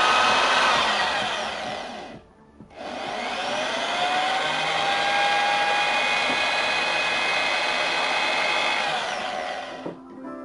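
Einhell corded electric drill boring into a coconut shell, its motor running at speed. It stops briefly about two seconds in, spins up again with a rising whine, and winds down near the end.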